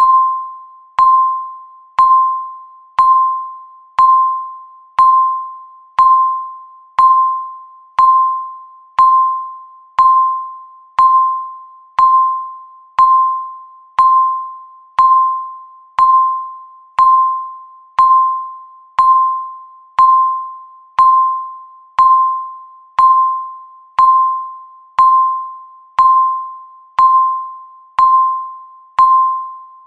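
Countdown timer beep: a short electronic tone of about 1 kHz that strikes sharply and fades, repeating exactly once a second to mark each second counted down.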